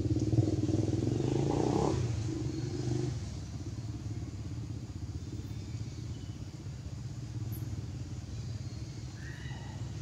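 A motor engine running steadily with a low hum, louder for the first three seconds and then lower and even.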